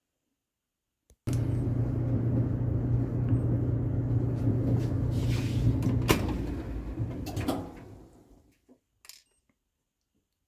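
Amana clothes dryer running: motor and drum start abruptly about a second in with a steady low hum and tumbling noise, a sharp click comes near the six-second mark, and the run winds down and stops a couple of seconds later.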